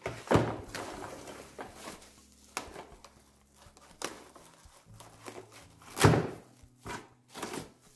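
Cling film pulled off its roll in a cardboard dispenser box and wrapped crinkling over a glass bowl, with several sharp knocks of the bowl and box on a stainless steel worktop, the loudest near the start and about six seconds in.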